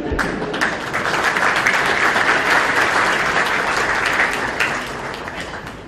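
Audience applauding: many hands clapping together, swelling over the first second and fading away near the end.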